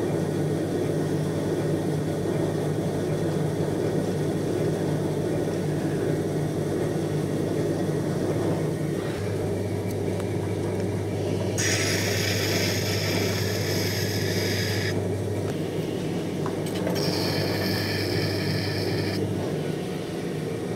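Electric potter's wheel running with a steady motor hum as clay spins on it. Twice, in the second half, a tool scrapes the turning clay with a hissing sound for a few seconds.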